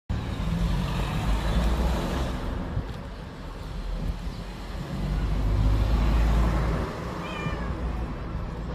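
Low traffic rumble that swells twice, with a short high cat meow falling in pitch about seven seconds in.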